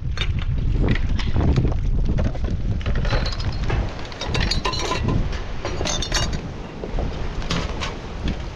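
Wind buffeting the microphone, with a run of clinks and knocks from things being handled.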